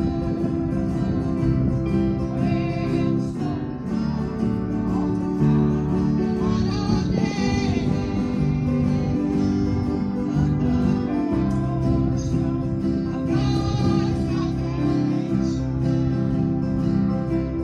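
Live gospel song: singers at microphones over a small band of guitars, bass and keyboards playing steadily.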